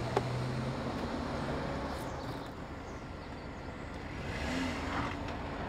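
A vehicle engine running steadily, a low hum that drops away about a second in and leaves an even rumble.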